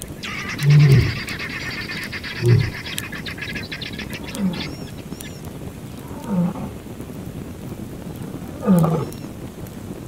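A lion's deep grunts, five in a row about two seconds apart, each falling slightly in pitch, the loudest near the start and near the end. Over the first four seconds or so a high, rapid rattling call runs alongside.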